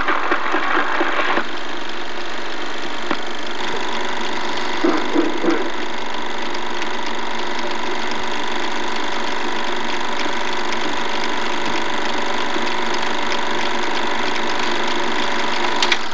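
Marching band music cutting off about a second in. It leaves the steady mechanical whir and hum of a film projector running, with a sharp click near the end.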